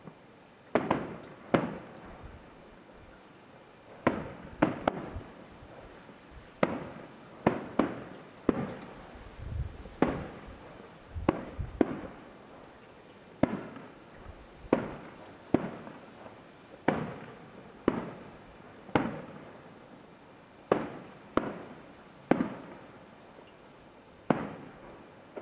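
Fireworks display heard from about a mile away: a run of shell bursts, a sharp bang roughly every second, sometimes two close together, each fading away in a short rumble.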